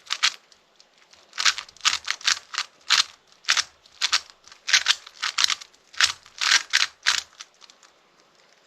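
Plastic Rubik's cube being turned fast: rapid, irregular clacking of the layers snapping through their turns in quick bunches, stopping about seven seconds in.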